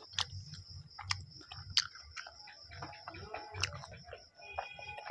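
A person chewing chow mein with close-up mouth sounds, smacking lips with sharp wet clicks about once a second. Near the end comes a sip from a plastic cup. A faint steady high whine sits underneath.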